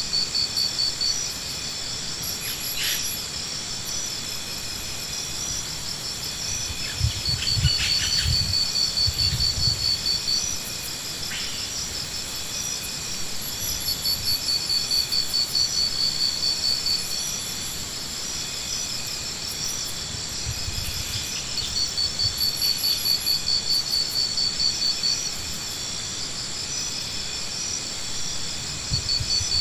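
Insects trilling: a high, rapidly pulsing trill in repeated phrases of a few seconds each, over a steady high whine, with a few brief low rumbles in between.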